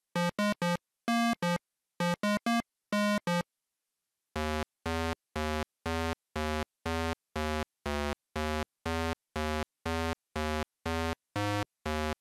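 8-bit chiptune synthesizer notes. The first few seconds are a quick, bouncy phrase of short beeps in little groups. After a pause of about a second, a lower note repeats steadily about twice a second.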